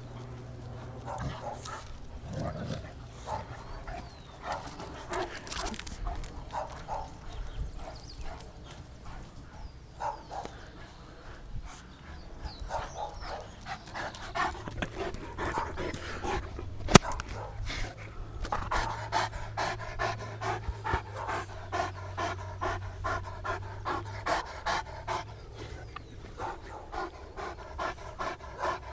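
Saint Bernard dog panting in a steady rhythm of about two breaths a second, heavier in the second half, with one sharp click about halfway through.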